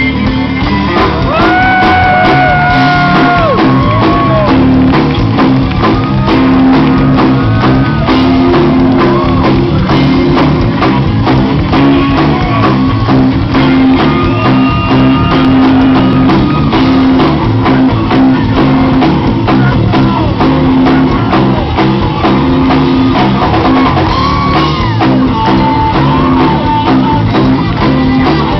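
Live electric blues band playing loud: long bent electric-guitar notes over bass and drums, with shouts and whoops from the crowd.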